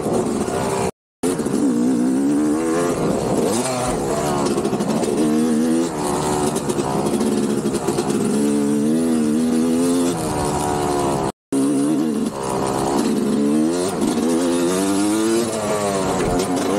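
Motocross dirt bike engine revving up and down again and again, its pitch rising and falling with the throttle. The sound cuts out briefly twice, about a second in and near eleven seconds.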